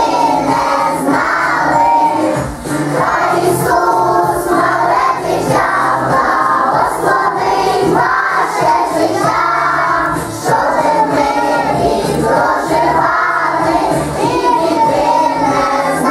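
A group of young children singing a song together over a backing music track.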